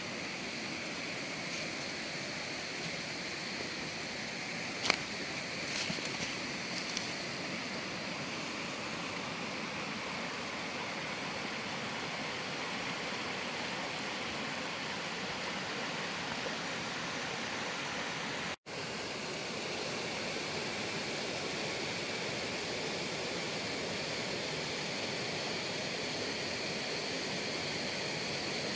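Rocky gorge stream rushing over stones and small cascades, a steady even rush of water. About five seconds in there is a single sharp click followed by a few faint ticks, and the sound drops out for an instant near the middle.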